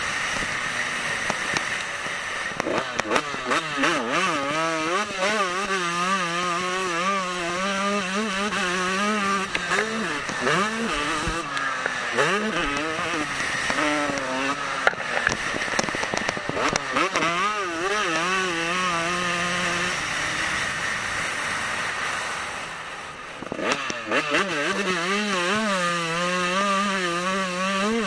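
KTM two-stroke motocross bike's engine running hard on track, its pitch climbing and falling with throttle and gear changes. A little past twenty seconds in the throttle is shut and the engine drops back for a couple of seconds before pulling hard again.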